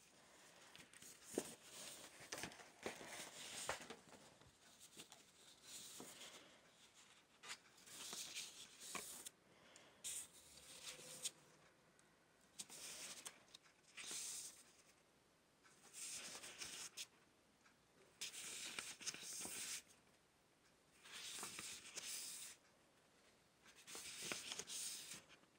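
Faint rustling of paper sheets being handled and leafed through, coming in short bursts every second or two, with a few sharp ticks.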